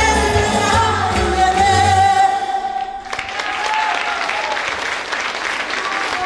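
A woman singing live with instrumental accompaniment; the band stops about two seconds in while she holds a long final note. About three seconds in, the audience breaks into applause, which carries on to the end.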